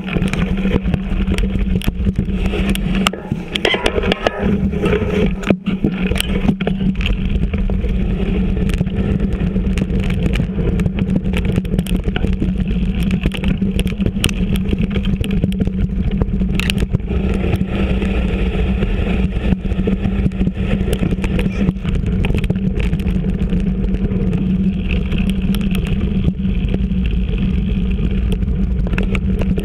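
Mountain bike riding over a leaf-littered dirt trail, heard from a camera mounted low on the bike: a steady rumble of knobby tyres and wind, with frequent rattles and knocks as the bike goes over bumps.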